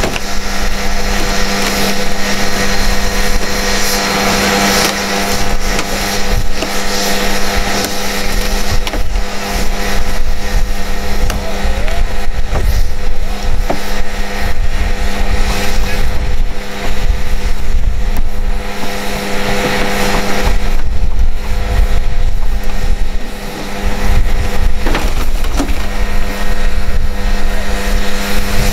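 Heavy diesel engine of a tow truck running steadily as it powers the winch cables on an overturned tractor-trailer, with a steady drone and a deep rumble under it.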